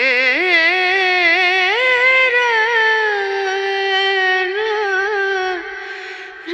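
A woman singing a Hindi song: long, drawn-out sung notes with a wavering vibrato, beginning suddenly and growing quieter near the end.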